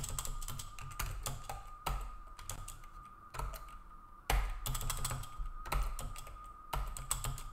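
Computer keyboard typing: irregular runs of keystroke clicks, with short pauses between bursts. A faint steady high tone hums underneath.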